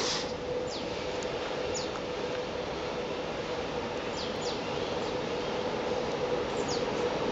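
Two electric locomotives in multiple with an empty coal train approaching, a steady hum and rumble growing slowly louder. Birds give short chirps now and then over it.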